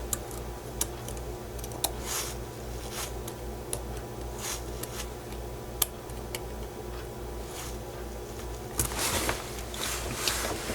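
Scattered small clicks and brief rustles of hand-handled small objects at a workbench, over a steady low electrical hum.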